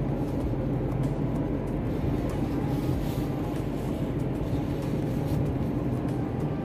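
A car driving at a steady speed: even engine and road noise with a constant low hum.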